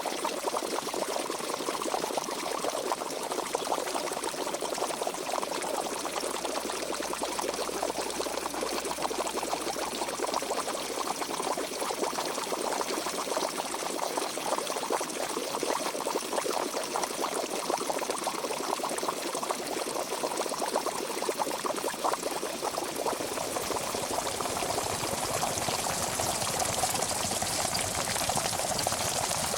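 Pot of water at a steady boil, a dense mass of small bubbles popping and churning. About two-thirds of the way through the bubbling grows deeper and a little louder.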